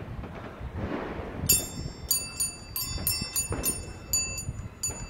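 A quick run of bright, ringing chime notes, about three a second, starting about a second and a half in. Low, irregular thumps run underneath.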